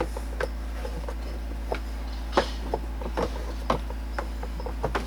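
Plastic heater box parts and blend doors clicking and knocking as they are handled and fitted together. The clicks come at irregular intervals, with one louder knock about halfway through, over a steady low hum.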